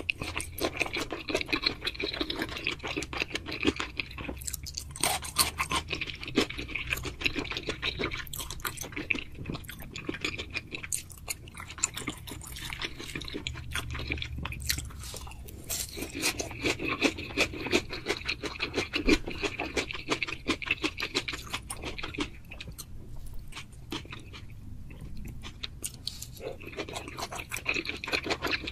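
Close-miked chewing of food: a dense run of wet mouth clicks and smacks, stronger in stretches of a few seconds.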